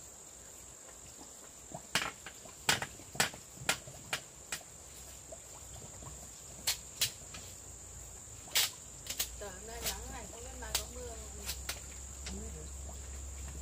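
Steady high-pitched insect chirring under a series of irregular sharp knocks, about fifteen strikes of a tool chopping wood.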